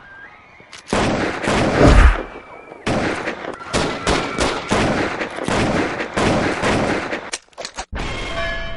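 Film gunfight: dense gunfire from about a second in, shot after shot overlapping, with one deeper, louder blast about two seconds in. It breaks off briefly near the end.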